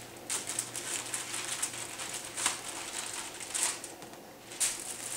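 Parchment paper and aluminium foil rustling and crinkling in a few short bursts as the sheets are handled and smoothed around a raw pork loin.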